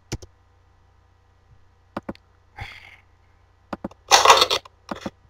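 Several sharp mouse clicks, then, a little after four seconds in, a short loud burst from a gun sound effect playing back in the video editor's preview, with a smaller noise close after it.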